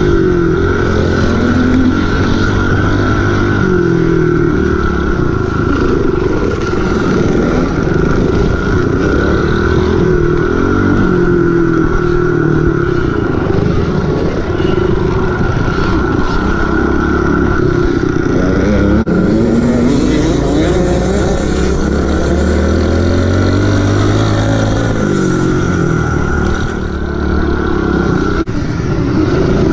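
Kawasaki KLX110's small single-cylinder four-stroke engine under way, its pitch rising and falling again and again as the rider accelerates, shifts and backs off.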